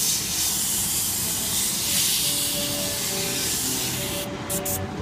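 Airbrush spraying paint in a steady hiss that stops about four seconds in, followed by two short puffs.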